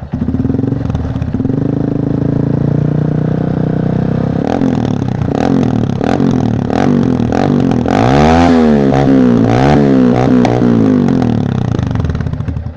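Honda Bros 125 single-cylinder four-stroke engine revved hard through a Jeskap K2 aftermarket exhaust with its dB killer removed. It climbs to high revs and holds there, with a series of sharp cracks, then is blipped quickly up and down before dropping back. With the original CDI the carbureted engine never reaches a rev-limiter cut.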